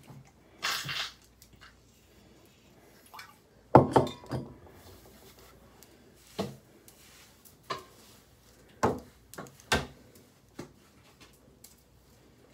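Scattered knocks, clicks and clinks of hair-styling things, among them a curling iron and its cord, being handled and set down, the loudest about four seconds in; a brief hiss about a second in.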